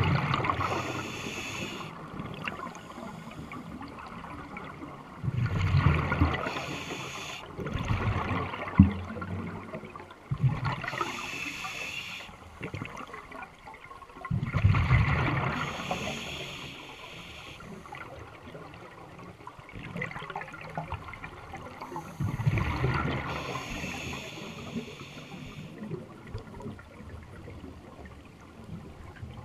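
Scuba diver's exhaled breath bubbling out of the regulator, heard underwater: about five surges of bubbling rumble several seconds apart, one per breath, over a fainter steady underwater hiss.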